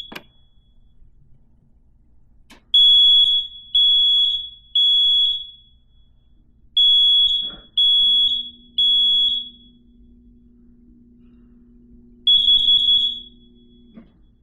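Kidde smoke alarm sounding its test: a loud, high, single-pitched beep in the three-beep pattern, two sets of three beeps about a second apart with a pause between, then a quick run of short chirps near the end. The alarm is working.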